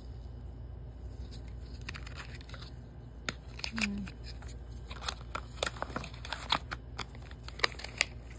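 Paperboard packaging of a phone charger being handled: the cardboard insert and box rubbing and clicking in the hands, with scattered sharp ticks and short scrapes that get busier after about three seconds.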